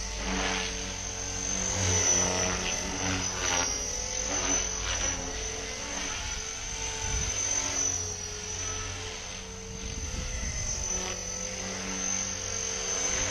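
GAUI X3 electric RC helicopter flying 3D manoeuvres at medium head speed: a steady high whine from the motor and drive over the sound of the spinning rotor blades, swelling and fading in loudness as the helicopter moves and the blade pitch changes.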